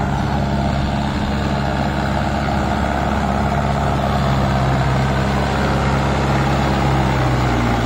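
Mahindra Arjun Ultra 605 tractor's four-cylinder diesel engine running steadily under load, pulling heavily loaded sugarcane trailers; the engine note drops slightly near the end.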